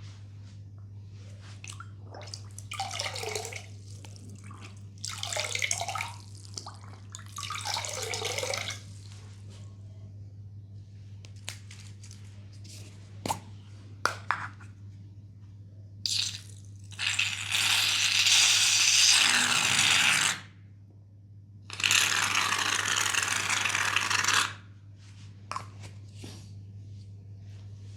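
Water sounds: three short swishes, a few sharp clicks, then two long hissing streams of about three seconds each, over a steady low electrical hum.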